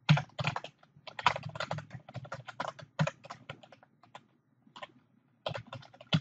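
Computer keyboard typing: quick runs of keystrokes for about three seconds, a few scattered keys after that, then another short burst near the end.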